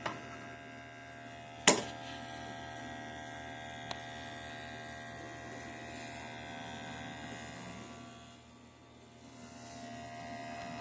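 Steady electric hum made of several steady tones, with a sharp click about two seconds in and a faint tick a couple of seconds later. The hum dips briefly near the end.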